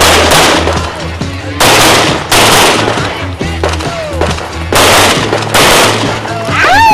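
Quick strings of shots from an Open-division competition pistol, fired in several short bursts with gaps between them as the shooter moves, over background music.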